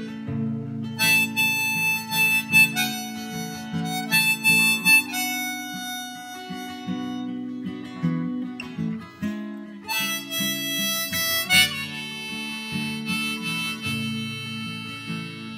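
Harmonica in a neck rack playing a melody of held notes over strummed acoustic guitar chords; the harmonica comes in about a second in, over guitar strumming.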